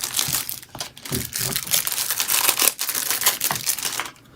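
Crinkling and rustling with many small clicks and knocks as exercise-machine parts and their packaging are handled during assembly; it stops about four seconds in.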